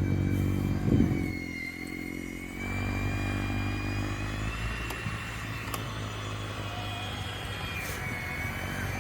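Snowblower's small engine running steadily with a high whine above it; the engine note shifts about two and a half seconds in.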